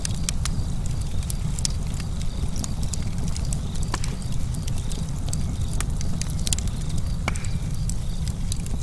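Burning wood crackling, with frequent irregular sharp pops over a steady low rumble.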